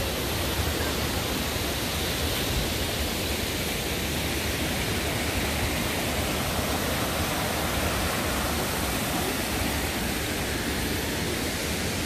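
Steady rushing of creek water flowing over a rock ledge at a small waterfall.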